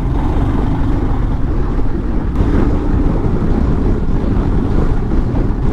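Steady rush of wind buffeting the microphone on a moving motorcycle, with the bike's engine and road noise under it at cruising speed.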